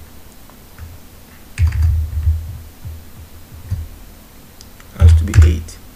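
Computer keyboard typing: a short run of key taps about a second and a half in, then two heavier knocks about five seconds in, with a dull thud through the desk.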